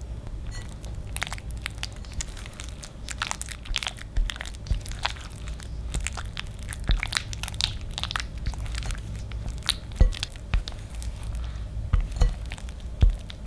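Silicone spatula stirring cream cheese frosting with heavy cream in a glass bowl: wet squishing and scraping against the glass in quick, irregular strokes, with a few sharper knocks of the spatula on the bowl in the last few seconds.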